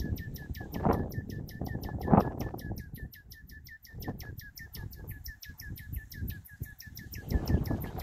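Common nightingale repeating a short note in a fast, even series, about seven a second. Low rumbling gusts of wind on the microphone sound under it, loudest about one and two seconds in.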